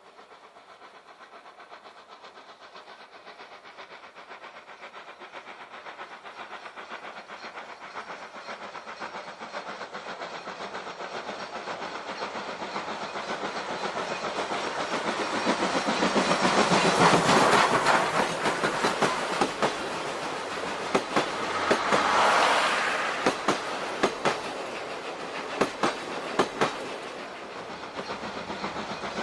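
C57 steam locomotive and its train approaching and passing close by, the sound building steadily to its loudest about 17 seconds in. After the engine passes, the coaches follow with sharp clicks of wheels over the rail joints.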